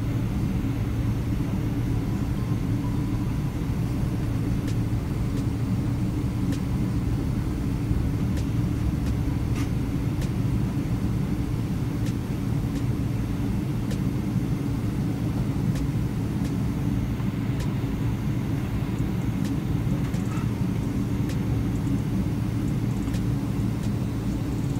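Cabin noise of a Boeing 777-300ER taxiing after landing: a steady low rumble and hum from its GE90 engines at taxi power and its wheels rolling on the taxiway.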